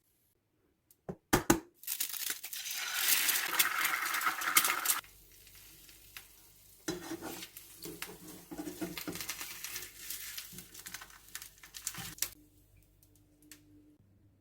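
Kitchen food-preparation handling sounds: a couple of sharp knocks, then about three seconds of loud crinkling and tearing that stops abruptly, followed by scattered clicks and clatter of kitchenware.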